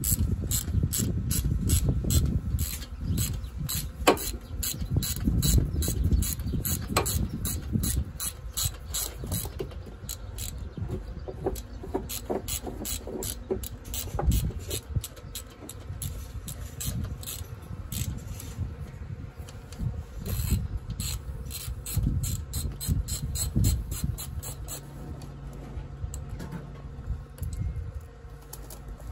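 Hand socket ratchet clicking in quick runs of strokes as a bolt is turned, with a couple of louder knocks.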